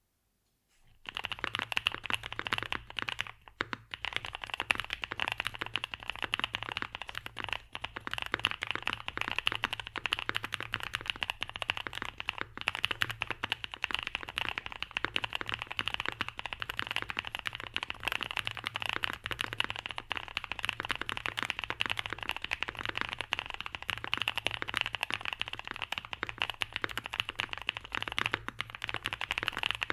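Fast, continuous typing on a Mode 80 mechanical keyboard with lubed Boba Linear Thock switches on a POM plate and Domikey Dolch keycaps: a dense, deep "thocky" clatter of keystrokes. It starts about a second in, with a brief pause around three seconds in.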